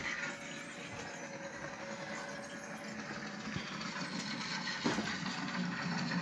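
Steady mechanical background noise with a single sharp knock about five seconds in.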